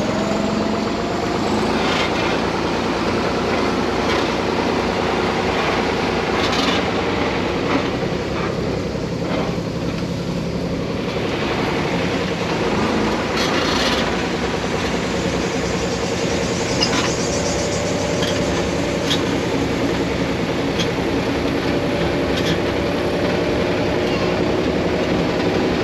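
Farm tractor's engine running steadily while it pulls a passenger trailer along a road, with a few short knocks and rattles from the ride.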